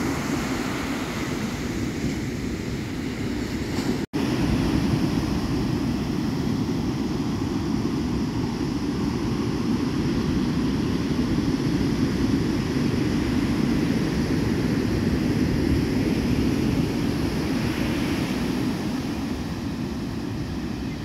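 Ocean surf breaking and washing up the beach as a steady rushing noise, mixed with wind on the microphone. The sound cuts out for an instant about four seconds in.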